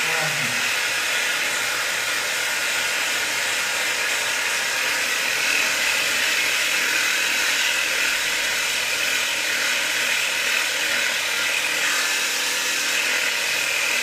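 A steady, even hiss with no break or change.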